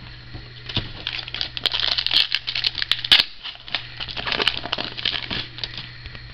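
Foil wrapper of a 2011 Contenders football trading-card pack being torn open and crinkled by hand. The dense crackling starts about a second in and dies away near the end.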